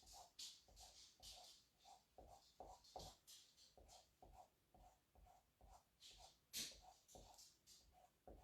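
Faint, quick run of short scraping strokes: a squeegee spreading black chalk paste across a Chalk Couture silk-screen transfer.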